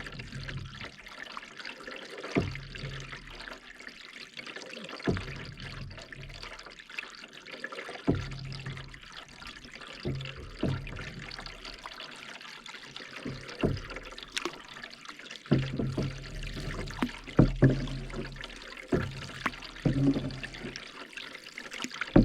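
Canoe paddle strokes: the blade dipping and pulling through the water every two to three seconds, more often near the end, with water trickling and dripping off the paddle between strokes.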